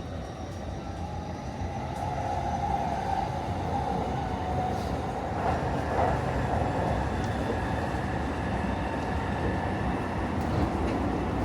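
Hanshin electric train running, heard from inside the car, its running noise growing louder over the first couple of seconds and then holding steady.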